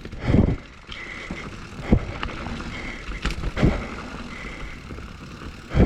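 Mountain bike riding over rough trail: steady tyre and drivetrain rattle with several sharp knocks from hits on the ground. A faint high buzz comes and goes.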